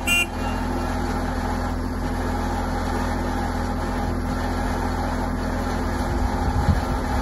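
Caterpillar IT28G loader's diesel engine idling steadily, with a brief high beep at the very start and a rougher low rumble near the end.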